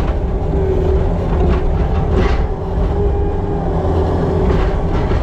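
Farm machine's engine running steadily, heard from inside its cab.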